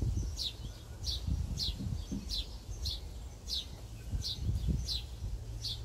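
A bird calling with a short, downward-sliding chirp over and over, about two a second, over a low rumble.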